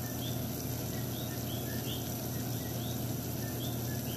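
Sugar syrup boiling at a rolling boil in a stainless steel pot, scattered small bubble pops heard as short blips a few times a second over a steady low hum. The syrup is close to the 115 °C soft-ball stage.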